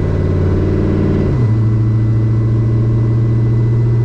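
Engine and road noise heard from inside a Chevrolet vehicle driving at speed. The engine note steps down to a lower steady pitch about a second and a half in, as on a gear change or easing off the throttle.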